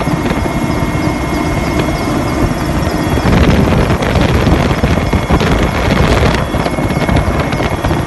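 Steady engine and rotor noise of a helicopter heard from on board, recorded on a phone, with rushing air; it grows louder about three seconds in.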